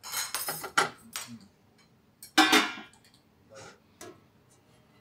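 Cutlery clicking and scraping on plates as people eat, in a quick cluster of clicks at first, with one louder clatter about two and a half seconds in and a few fainter clicks after.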